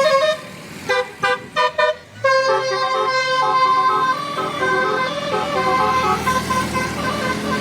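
Telolet Basuri musical bus horn playing a tune: a few quick short notes about a second in, then a longer flowing melody of held notes.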